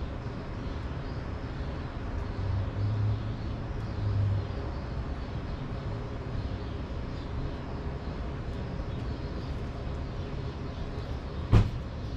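Gas pressure washer engine running steadily, with a single sharp knock near the end.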